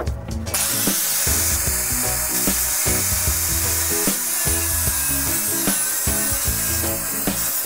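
Power tool cutting wood: a steady rushing cut that starts about half a second in and holds at an even level, with background music underneath.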